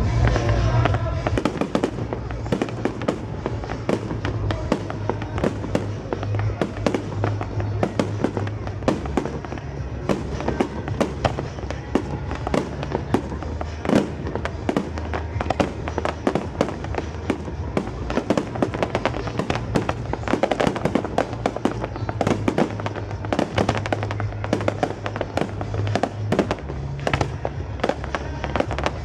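Fireworks display with rapid, dense bangs and crackling throughout, over loud music with a heavy bass.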